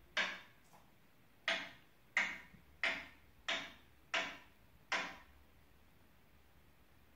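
A person knocking seven times, sharp separate knocks each dying away quickly. After the first knock there is a pause of about a second, then six knocks come at an even pace of roughly one every two-thirds of a second.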